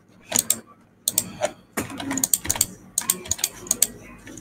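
Computer keyboard keys being typed and clicked in an irregular clatter of sharp keystrokes.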